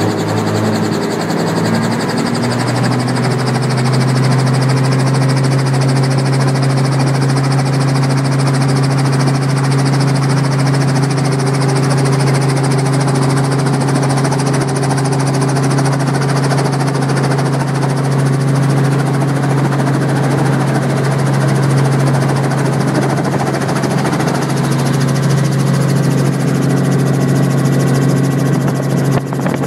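Helicopter engine and rotor heard from inside the cabin: a loud, steady droning hum whose low tone rises slightly in the first couple of seconds, then holds.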